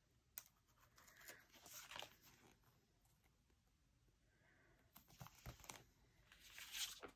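Near silence, with faint scratching of a pen writing on planner paper and a few light paper rustles.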